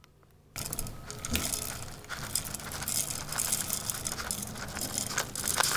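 Toasted rolled oats poured and shaken out of a plastic bowl onto chopped fruit in a clear bowl: a dry rustle of many small ticks that starts about half a second in.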